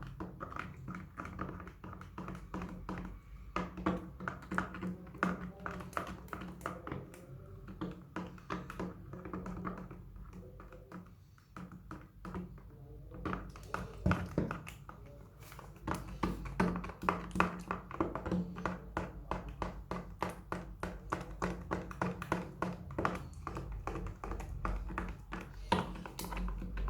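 Slime being worked by hand: squeezed, pressed and stretched, giving a dense, irregular run of small sticky clicks and pops, several a second.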